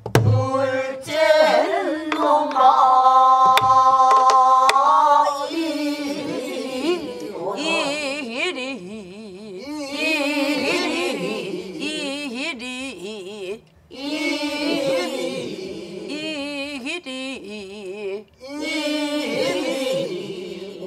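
Pansori singing with wide vibrato and long drawn-out notes, accompanied by occasional strokes on a buk barrel drum.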